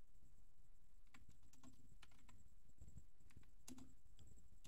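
Faint computer keyboard typing: scattered, irregularly spaced keystrokes.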